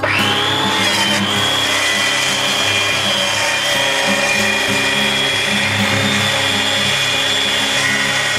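Titan plunge track saw starting up with a quickly rising whine, then running steadily at a high whine while cutting through a board along its guide rail. It stops near the end.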